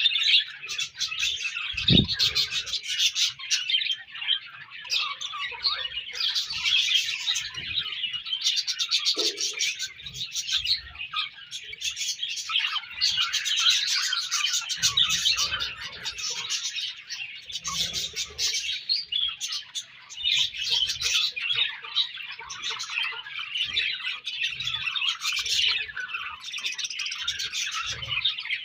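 A colony of budgerigars chirping and chattering continuously, many birds at once. There is a brief low thump about two seconds in.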